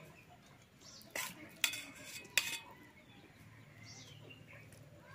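Stainless steel serving ladle clinking against a steel pot and steel plates while curry is served: three sharp metallic clinks in the first half, each with a short ring.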